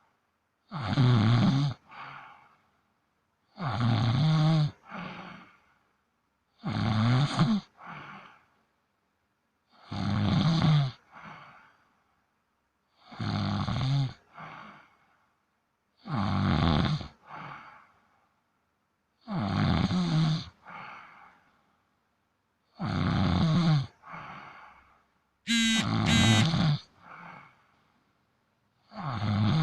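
Domestic cat snoring in its sleep: a loud snore about every three seconds, each followed by a shorter, softer one. One snore near the end carries a high whistle.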